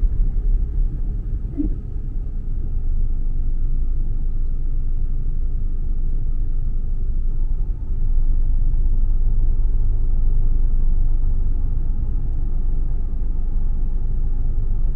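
Steady low rumble of a car driving over a dirt road, heard from inside the cabin.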